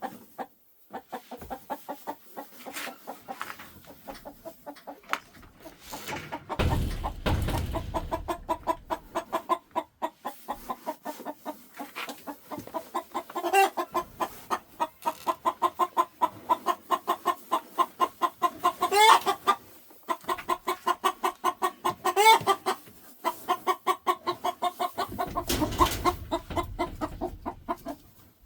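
Mother hen clucking in a quick, steady run of low clucks, with a few louder, rising calls mixed in. Two stretches of low rumble come through, about a quarter of the way in and near the end.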